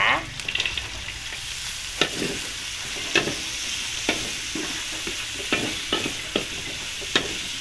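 Diced carrots sizzling as they fry in spice paste in a large metal wok, a steady hiss, with a metal spatula clacking and scraping against the pan at irregular intervals about a second apart as they are stirred.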